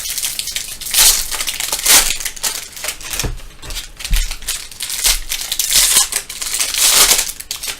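Foil trading-card pack wrappers being torn open and crumpled, in several crackling bursts about one, two, five and seven seconds in.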